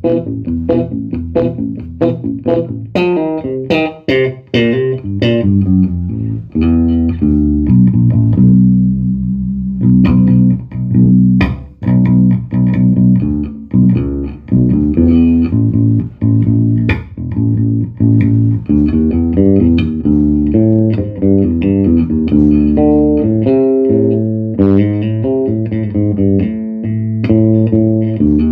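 Electric bass guitar played through a Fender Bassman 500 bass amplifier: a run of quick plucked notes, then longer held low notes from about eight seconds in. The amp is being sound-tested after a repair for its sound randomly cutting out.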